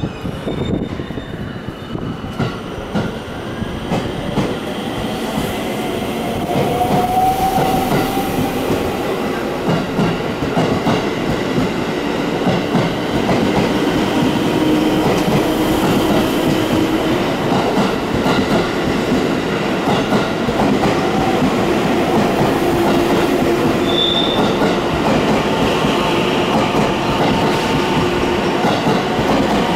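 JR West 223 series electric train pulling away from the platform, growing louder over the first several seconds. Its motors whine in tones that rise in pitch as it gathers speed, over the running noise of the wheels on the rails.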